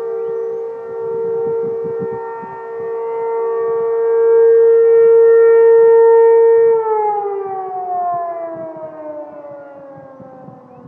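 Three outdoor warning sirens, an ACA P-10, an ASC RM-127 and a Federal Signal STL-10, sounding the steady Alert signal together as one chord, swelling and dipping in loudness. About seven seconds in they shut off at the end of the alert cycle and wind down, the chord sliding slowly lower and fading.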